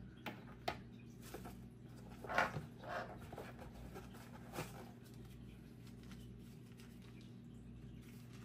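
Hands rummaging in a cardboard box of packed camera accessories: a few short knocks and rustles of packaging in the first half, the loudest about two and a half seconds in, over a steady low hum.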